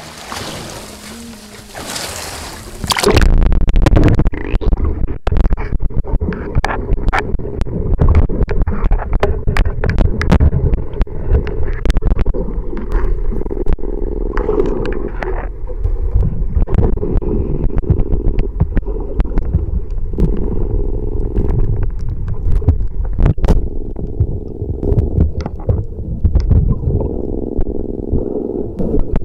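Wind and sea hiss above the water. About three seconds in, the sound turns into the muffled low rumble of water washing over an underwater camera, with frequent sharp knocks and clicks against the housing.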